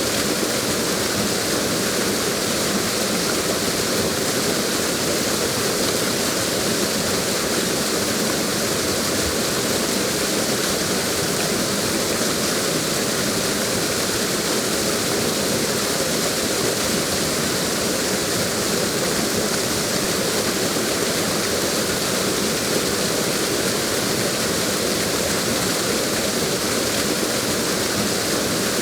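Waterfall rushing steadily: a constant, even roar of falling water with no pauses or changes.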